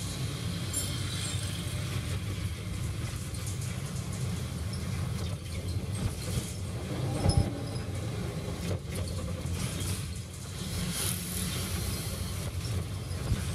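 Steady low rumble of a vehicle riding in slow traffic, heard from inside its cabin, with one short knock about seven seconds in.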